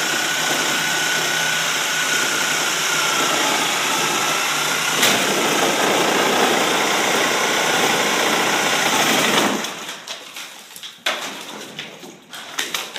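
A motor-driven machine running steadily with a faint whine, cutting off about nine and a half seconds in. A few scattered knocks and clicks follow.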